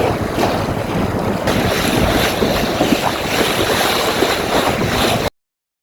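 Strong wind buffeting the microphone over water rushing and slapping against the hull of a small open sailboat moving fast through waves. The sound cuts off suddenly near the end.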